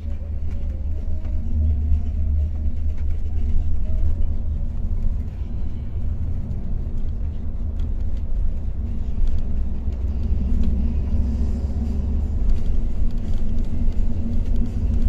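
Steady low drone of engine and road noise heard from inside the cabin of a moving Mercedes-Benz Travego coach.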